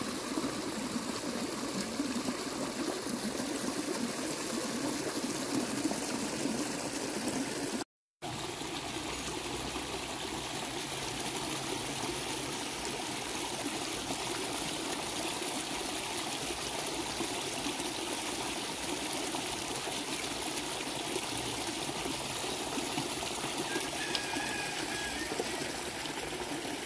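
Small stream running and trickling over rocks in a steady, even rush of water. The sound cuts out completely for a moment about eight seconds in, then the same steady water noise resumes.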